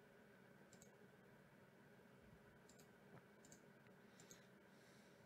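Near silence with a few faint computer-mouse clicks, spaced a second or so apart, as buttons are pressed on a web page.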